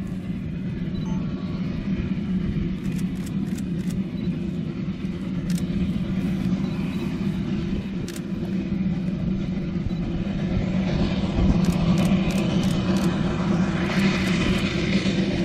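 Narrow-gauge steam train double-headed by two steam locomotives, approaching with a steady low rumble that grows louder after about ten seconds, with scattered sharp clicks that come more often near the end.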